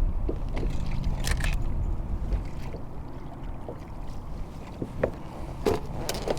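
A few light clicks and knocks of fishing tackle being handled aboard a kayak, over a steady low rumble and hum.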